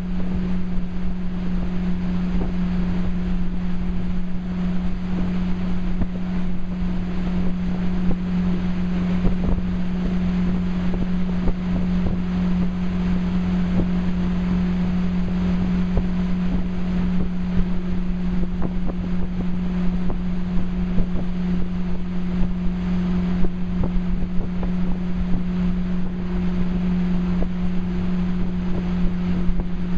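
Tow boat's engine running steadily at towing speed, a constant hum that holds one pitch, with wind buffeting the microphone and the rush of the wake and spray.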